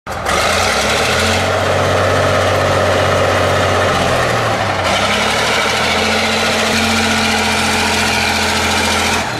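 Heavy engine idling sound effect: a loud, steady low rumble whose tone shifts about halfway through.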